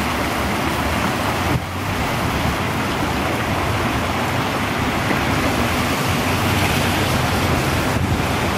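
Rain-swollen storm runoff rushing down a concrete drainage channel and into a culvert: a steady, loud rush of water.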